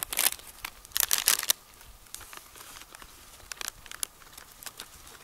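Crinkly plastic chip bag of Doritos being handled: two loud bursts of crinkling, at the start and about a second in, then lighter rustles as it is held and fingered.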